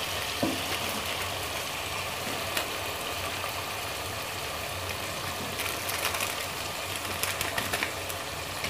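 Chicken frying in oil in a pressure cooker over high heat: a steady sizzle with scattered crackles and pops, more of them in the last few seconds, over a low steady hum.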